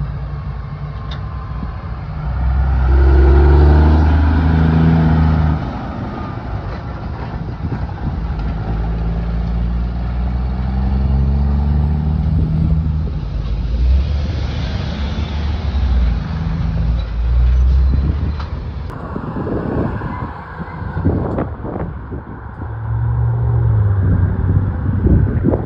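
Semi-trailer trucks driving past at road speed: the diesel engine of a bonneted prime mover pulling a red trailer drones loudest a few seconds in as it passes close by, then fades, with another truck's engine following. Gusts of wind buffet the microphone in the later part.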